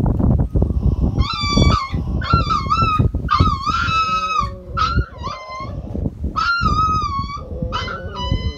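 A sick puppy crying in a rapid string of short, high-pitched whines and yelps, about a dozen, starting about a second in, while it is held for an injection. A lower whine joins in twice, and rustling and knocks from handling on the blanket come first.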